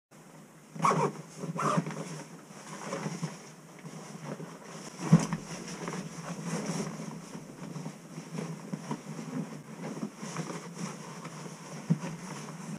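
Rustling and shuffling of bags and clothing as gear is handled, with scattered clicks and a few sharp knocks, the loudest about five seconds in and another near the end.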